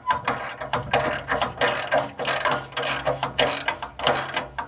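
Ratchet wrench clicking in quick repeated strokes, about three a second, as a rusted nut is worked back and forth on an exhaust stud that is binding on its last few threads.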